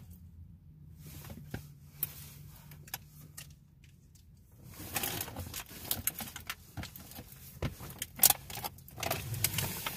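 Quiet handling noise from a water bottle being picked up and drunk from: scattered clicks and rustles, mostly in the second half.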